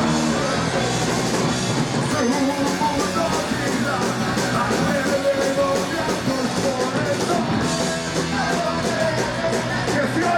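Ska-punk band playing live, a singer's voice over a full band with a steady beat.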